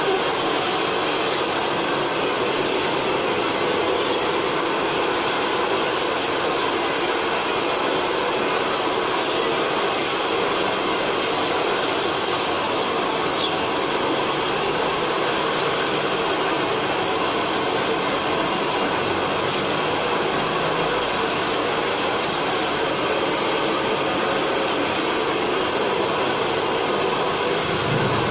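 Hair dryer running steadily, an even rush of air noise.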